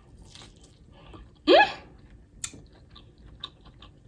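A person eating lobster tail gives one short, sharp vocal sound that rises steeply in pitch about one and a half seconds in. Soft chewing and mouth clicks follow.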